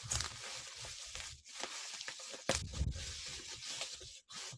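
Plastic bubble wrap crinkling and rustling as it is pulled off books packed in a cardboard box, with a louder crackle about halfway through.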